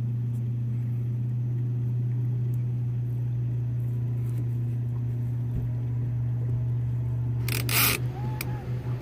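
A steady low motor-like hum runs throughout, with a brief rustling scrape about a second before the end.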